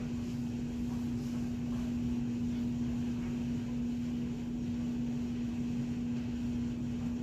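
A steady low hum, one unchanging tone with a low rumble beneath it, that runs without a break.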